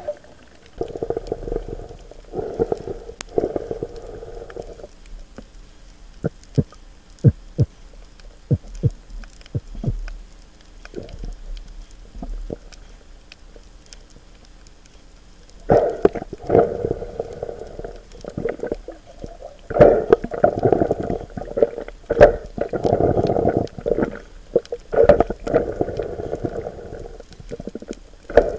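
Muffled underwater gurgling and rushing of water as a diver swims, picked up by a camera under water, in surges of a second or more during the first few seconds and again through the second half. Between them, a quieter stretch with scattered sharp clicks.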